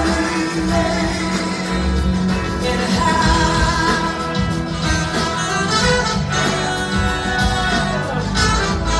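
Live rock band playing loud, with a woman singing over electric guitars and drums, and a horn section of trombone, trumpet and saxophone joining in.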